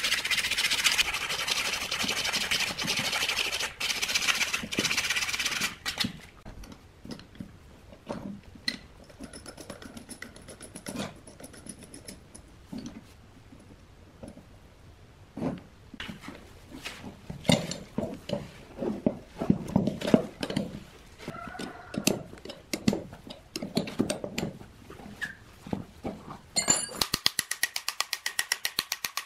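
Hand-tool work on a rusty shaft and bearing with a three-jaw gear puller. A loud steady noise runs for the first several seconds, then scattered clinks and knocks come as the puller is fitted and worked, and a fast even run of clicks follows near the end as the tool is driven.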